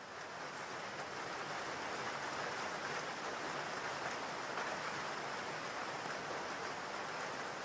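Steady rain falling, an even hiss that fades in over about the first second and then holds steady.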